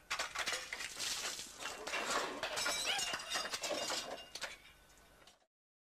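Crash and clatter of a ladder and debris coming down onto a paved yard, with glass breaking and clinking. The clatter dies away after about four seconds and cuts off suddenly.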